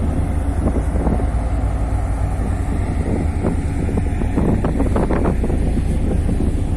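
Wind buffeting the microphone in uneven gusts over the steady low rumble of a car ferry underway.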